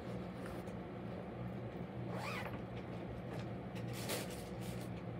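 Rustling and light clicks from cross-stitch project bags and fabric being handled, over a steady low hum. A short squeak that rises and falls comes about two seconds in.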